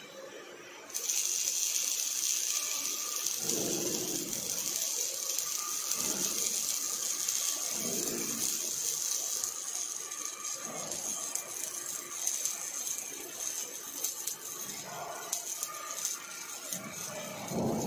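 Robot arc welding on steel: the welding arc strikes about a second in and then runs as a steady, high-pitched crackling sizzle, easing a little about halfway through.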